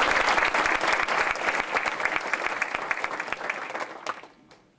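Audience applauding, dense clapping that thins out and stops about four seconds in.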